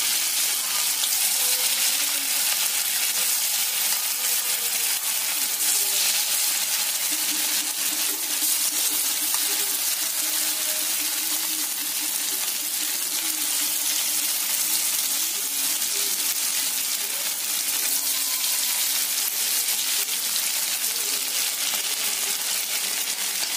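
Batter-coated chicken 65 pieces deep-frying in hot oil in a pan, with a steady, loud sizzle.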